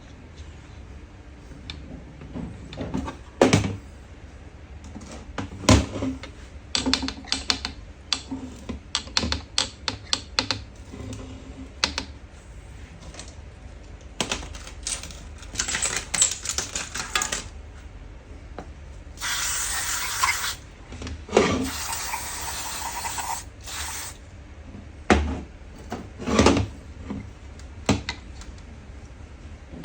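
Metal parts and hand tools clicking and knocking on a workbench during hands-on work on a diesel fuel pump, in irregular taps and clinks. Midway there is a steady hiss lasting about four seconds.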